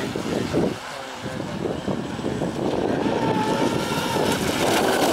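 Brushless RC speedboat's motor running as the boat planes across the water at speed, with wind buffeting the microphone.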